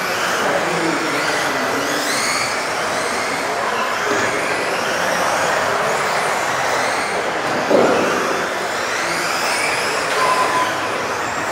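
Several 1:10 electric RC off-road buggies racing, their motors whining in overlapping rising and falling pitches as they speed up and brake through the corners, with a sharp knock about eight seconds in, likely a car hitting the track border.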